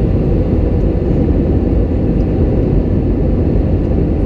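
Steady low rumble of an Airbus A320-200 in flight, engine and airflow noise heard inside the cabin from a window seat over the wing, during the approach to landing.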